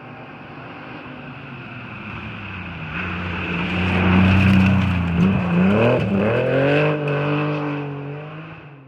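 Rally car engine growing louder as it comes closer, with a quick drop and climb in revs about halfway through, like a lift or gear change, then pulling away and fading before cutting off suddenly near the end.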